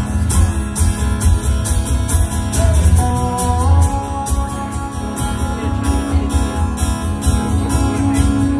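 Acoustic guitar strummed in a steady rhythm, with sustained notes from a second instrument above it, one sliding up in pitch about three seconds in.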